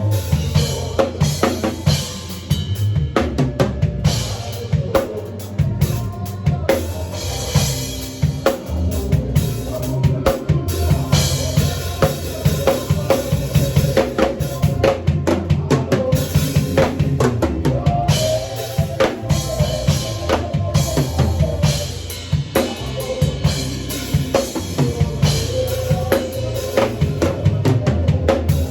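Drum kit played in a busy, continuous groove: bass drum, snare and rimshots, with many quick hits in close succession.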